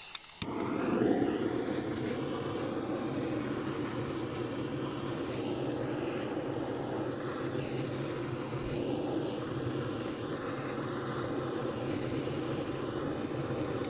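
Butane canister blowtorch burning with a steady hiss as its flame is held into a firebox to light the wood fire under a pyrolysis retort. It starts abruptly about half a second in and holds even throughout.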